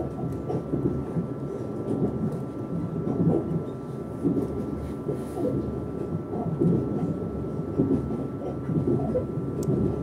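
Running noise heard inside the passenger car of a Lastochka (Siemens Desiro RUS) electric train at speed: a steady low rumble from wheels and track, with a constant faint high hum over it.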